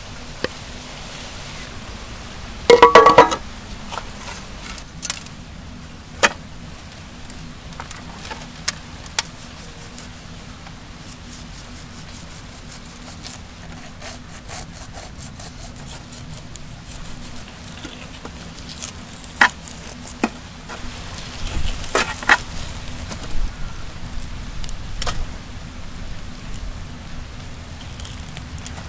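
Knife and hands working a fish on a cutting board: scattered knocks, taps and scrapes over a steady low hum. About three seconds in there is one brief, loud pitched sound, and the knocks come thicker later on.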